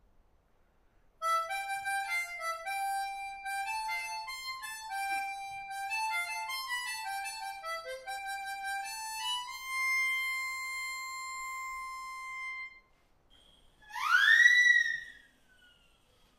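Harmonica playing a tune, ending on a long held note. Then a short, loud sliding whistle-like sound rising in pitch and tailing off.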